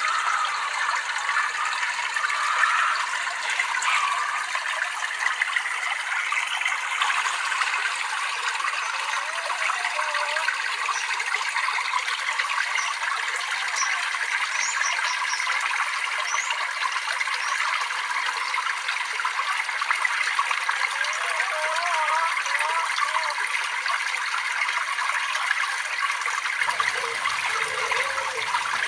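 Flowing water babbling and trickling steadily.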